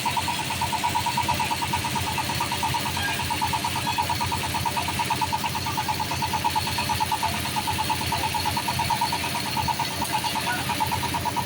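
Bored-pile drilling rig for cast-in-place concrete piles running steadily, its engine and drill making a continuous mechanical noise with a fast, even pulsing.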